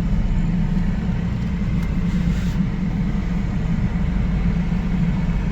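Car driving, a steady low engine and road rumble.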